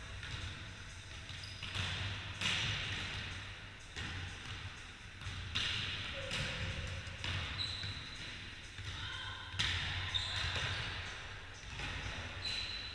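Volleyballs being hit and bouncing on a wooden gym floor: sharp slaps every second or two, each echoing around a large sports hall, with a few brief high squeaks in between.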